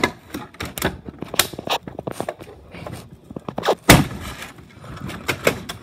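Toy blaster packaging being pulled and torn open by hand: a rapid string of sharp snaps, crackles and knocks, the loudest about four seconds in.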